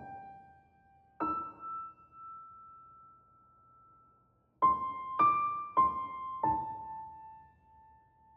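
Slow, sparse piano music: one note at the start and another about a second in, each left to ring out, then four notes in quick succession about halfway through, the last one sustained as it fades.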